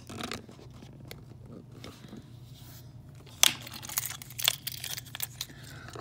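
Handling noise: a series of sharp clicks and crinkling rustles starting about three and a half seconds in, the first click the loudest, over a faint steady hum.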